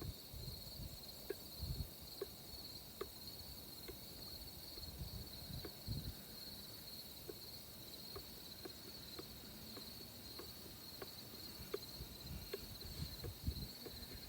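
Soft regular clicks, about one every two-thirds of a second, from the primer bulb of a Craftsman chainsaw being pumped over and over while the bulb still draws no fuel. Crickets keep up a steady high trill behind it.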